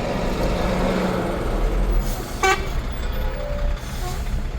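Steady rumble of road traffic, with one short vehicle horn toot about two and a half seconds in.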